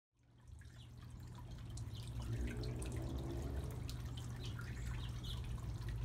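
Small rock fountain in a birdbath trickling and dripping, fading in over the first two seconds, over a low steady rumble.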